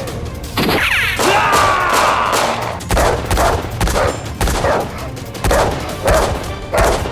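A gliding, falling tone about a second in, then from about three seconds in a rapid string of gunshot sound effects, about two bangs a second at uneven spacing.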